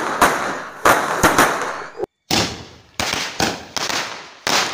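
Two seven-star signal-rocket fireworks, a red and a green, firing together: a run of sharp bangs, several a second and irregularly spaced, each with a short echoing fade. The sound drops out for a moment about two seconds in.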